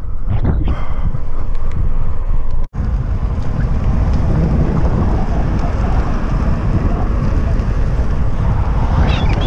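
Wind buffeting a bike-mounted camera microphone while riding, a loud, steady rush heaviest in the low end. The sound cuts out for an instant a little under three seconds in.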